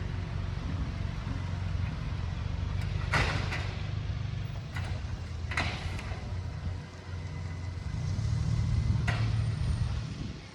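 Garbage truck's diesel engine running with a steady low rumble that grows louder near the end. Short, sharp hissing bursts sound about three and five and a half seconds in, with a fainter one near nine seconds.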